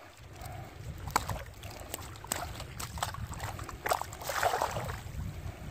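Water splashing and sloshing in short, sharp bursts, with a longer splashy stretch about four seconds in, over a low rumble of wind on the microphone.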